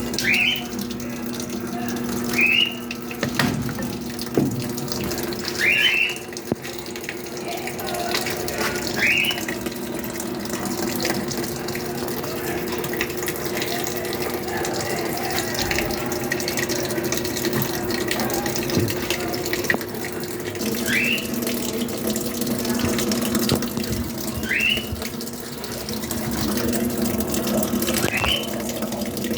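Top-loading washing machine running with water pouring into the tub and a steady hum, plus a short rising chirp every few seconds.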